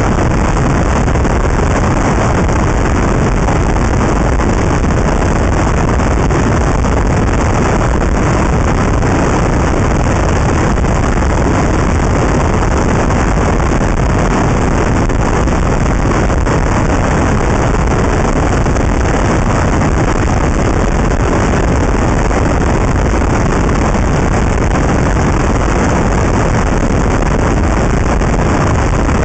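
Steady, loud wind rush over the microphone of a camera mounted outside a moving car, mixed with road and tyre noise, with no distinct engine note standing out.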